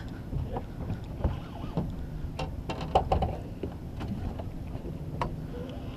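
Small boat on open water: a steady wash of water and wind noise with a faint low hum. A scattered run of light, sharp clicks and knocks comes from about the middle to near the end.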